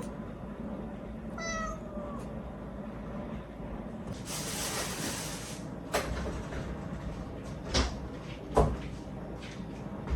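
A frightened stray cat meows once, a falling call lasting under a second. About four seconds in comes a burst of breathy noise, followed by a few sharp knocks.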